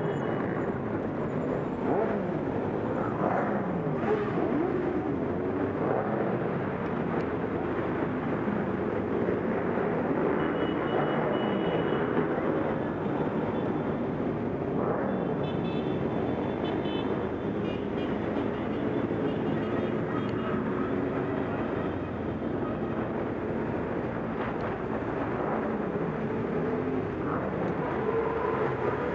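Engines of a large group of motorcycles riding slowly in city traffic, their pitch repeatedly rising and falling as riders rev, shift and pull away, over a steady rush of traffic noise.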